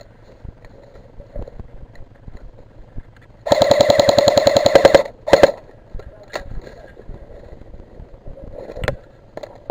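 Airsoft rifle firing a full-auto burst of about a second and a half, at roughly twenty shots a second, then a short second burst. A few single sharp cracks follow later.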